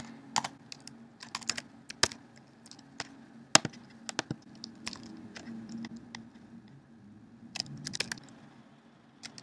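Computer keyboard typing: irregular, scattered key clicks, the sharpest about three and a half seconds in.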